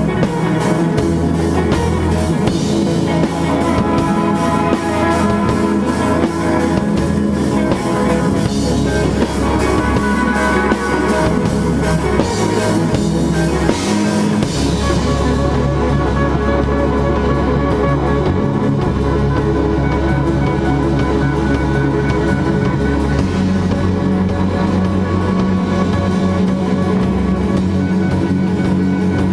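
Instrumental rock band playing loud and steady: electric guitars through amplifiers and a drum kit, with held, ringing guitar notes. The bright high end, cymbals and treble, thins out about halfway through while the guitars and low notes carry on.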